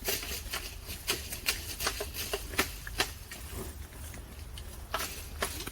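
Green plums (maesil) falling from a shaken tree and striking below, an irregular series of sharp taps, a few each second.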